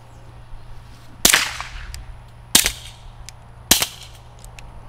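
Three suppressed pistol shots, a little over a second apart, each a sharp crack with a short tail. They come from a Ruger-57 firing subsonic 5.7x28mm ammunition through a Dead Air Mask .22 rimfire suppressor.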